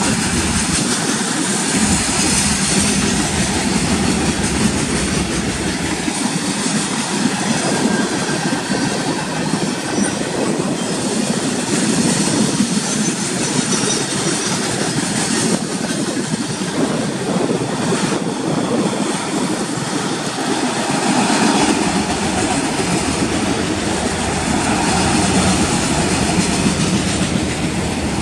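Freight cars of a manifest train rolling past close by: a steady loud rumble and rattle of steel wheels on the rails.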